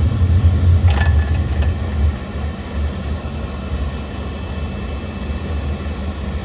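Oil burner running with a steady low rumble, with a couple of light metallic clinks about a second in; the rumble eases a little about two seconds in. Its oil pump pressure is reading below the 140 psi it should run at.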